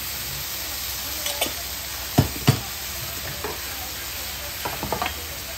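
Okonomiyaki and Fujinomiya yakisoba sizzling on a hot teppan griddle as sauce is brushed on, with a few sharp knocks of utensils against metal, the two loudest about two seconds in.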